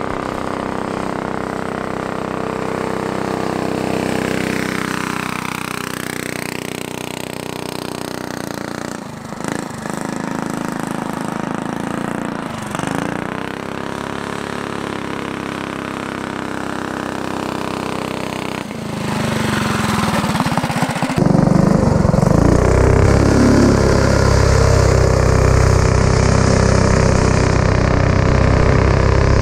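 Rally go-kart's stage-one Predator single-cylinder small engine running as the kart drives laps, heard from the edge of the track. About 21 seconds in it is suddenly much louder, heard up close from on board the kart.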